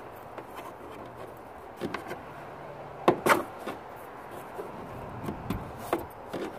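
Plastic bike tyre lever prying at a car's plastic interior trim panel to release its clips: scattered sharp plastic clicks and knocks, the loudest pair about three seconds in.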